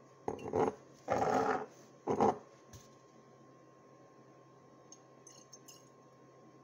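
A glass rum bottle being handled on a stone counter: three short knocks and scrapes in the first couple of seconds, then quiet with a few faint clinks about five seconds in as the bottle is tipped over a glass jar.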